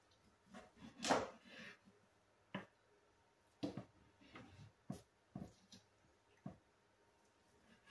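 Kitchen knife cutting through grilled chicken breast and knocking on a plastic cutting board: about ten irregular taps, the loudest about a second in.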